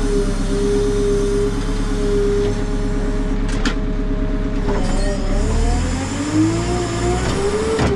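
JCB 3CX backhoe loader's diesel engine running steadily, then revving up from about five seconds in, its pitch rising until near the end.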